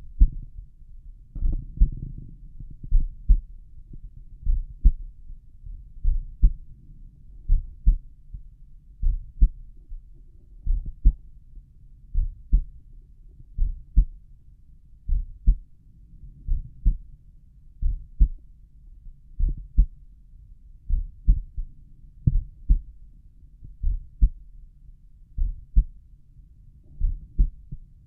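Slow resting human heartbeat auscultated over the tricuspid valve area, heard through a stethoscope: regular lub-dub pairs of low, muffled thumps about every second and a half.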